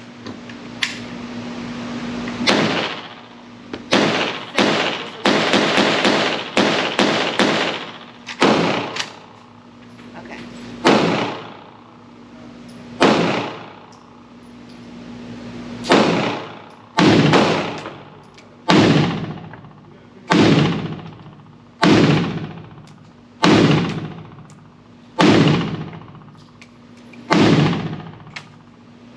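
Pioneer Arms Hellpup AK-pattern pistol in 7.62x39 firing a slow string of single semi-automatic shots, each a sharp report with a ringing tail, about one every one to two seconds.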